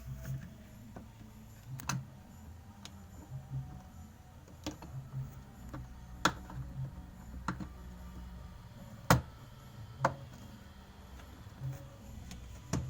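Irregular clicks and knocks of parts and tools being handled, a dozen or so scattered strikes, the loudest about six and nine seconds in, over a low hum.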